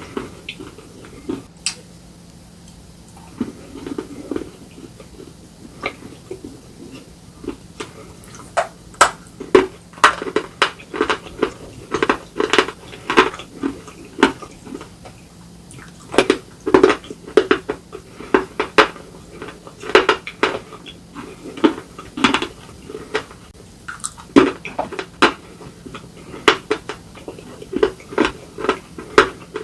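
Close-miked crunching of slate pencils and slate bar being bitten and chewed: sharp, irregular cracks in quick clusters, sparse for the first few seconds and then coming thick and fast.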